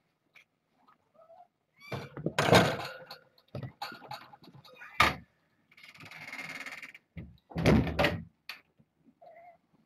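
Kittens bumping and brushing against a camera at floor level: several dull thumps and knocks, loudest about two to three seconds in, at five seconds and near eight seconds, with a scratchy rustle in between.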